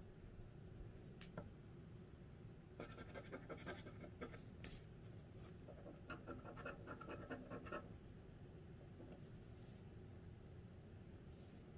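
A metal utensil scraping the coating off a paper scratch-off lottery ticket in quick short strokes: a stretch of scratching about three seconds in, another about six seconds in, and a fainter bit near the end.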